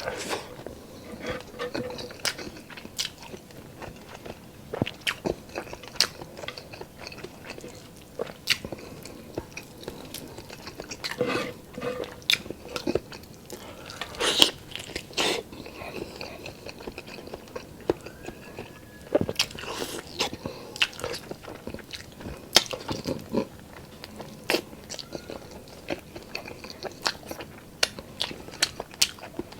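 Close-miked eating: a person chewing and smacking mouthfuls of oily pork adobo and rice, with many irregular sharp wet mouth clicks.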